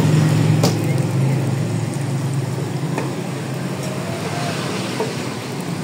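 Metal tongs clicking against a large iron tawa as parathas are turned: three sharp clicks a couple of seconds apart. Under them runs a steady low rumble.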